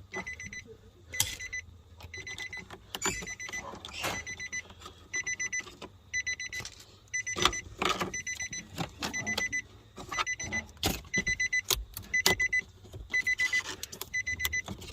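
High electronic warning beeper sounding in short groups of rapid beeps, about one group a second. Sharp clicks and knocks of parts being handled are mixed in.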